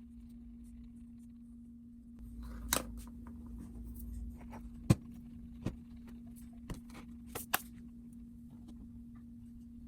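A few short, sharp clicks and knocks over a steady low hum, with the loudest knock about five seconds in.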